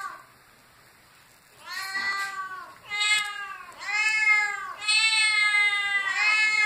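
Ginger cats meowing over and over: about five meows after a quiet first second and a half, each rising and falling in pitch, the longest one near the end.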